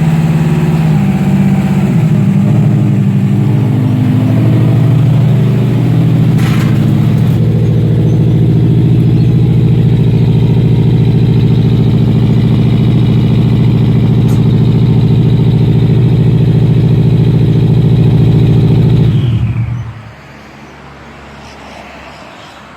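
Car engine idling steadily, then shut off about nineteen seconds in, its note sagging as it stops.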